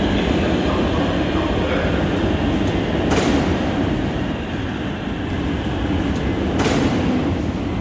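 A train running on the rails: a steady, loud rumble, with two sharp clacks about three and a half seconds apart.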